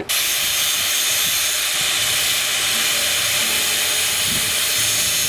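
Welding arc on sheet steel, giving a steady loud hiss that starts suddenly.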